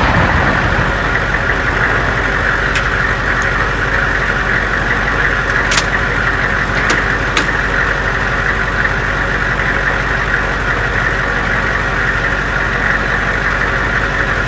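Military truck engine idling steadily, with a few brief sharp metallic clicks partway through; the tail of an M777 howitzer shot fades at the very start.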